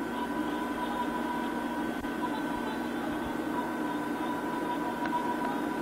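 Steady hiss and hum with a few faint, unchanging tones under it; no distinct event.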